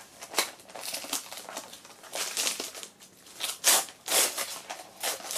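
Gift wrapping paper rustling and crinkling in uneven bursts as a small wrapped box is unwrapped by hand.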